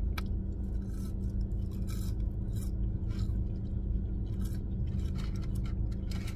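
Close-miked eating of shoestring fries: short crisp chewing and mouth sounds and scrapes of fingers in the paper fry box, coming every half second or so, over the steady low hum of the car with its engine running.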